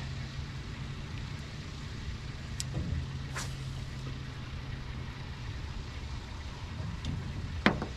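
Small electric motor aboard a bass boat humming steadily at a low pitch, cutting off about two-thirds of the way through, over a low rumble. A few faint clicks and a sharp tap near the end.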